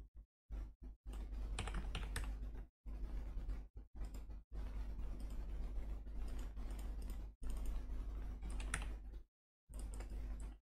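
Computer keyboard typing and mouse clicks over a low, steady hum. The sound cuts out to silence and back abruptly several times.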